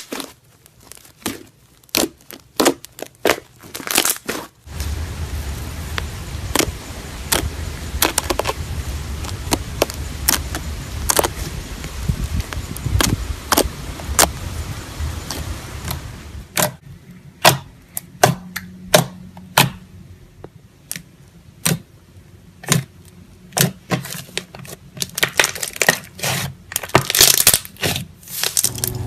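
Slime being worked by hand: a long run of irregular sharp clicks and crackles. A steady low hum runs under them from about five seconds in until about two-thirds of the way through.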